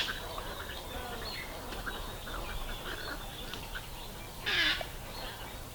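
Wild birds calling: a steady scatter of short chirps and calls, with one louder, harsh call about four and a half seconds in.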